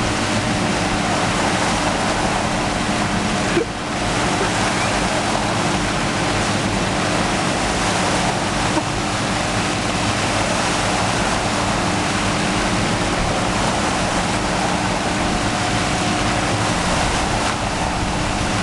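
Steady rush of a large volume of water pouring out of a concrete mixer truck's chute, with the truck's engine running underneath.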